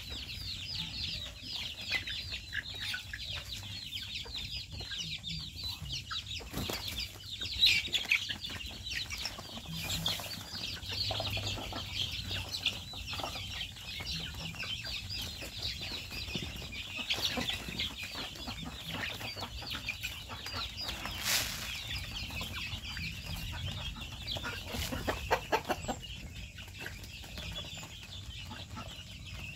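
Flock of chickens with young chicks: a constant stream of high-pitched peeping over clucking, with a few sudden louder sounds.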